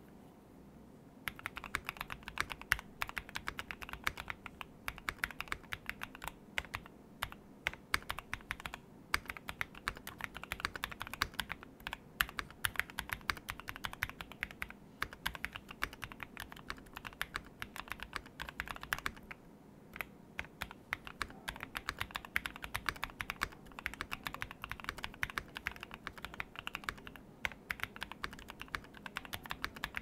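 Typing on a CIY GAS67 gasket-mount mechanical keyboard: a dense, clacky run of keystrokes that starts about a second in, with a short break about two-thirds of the way through.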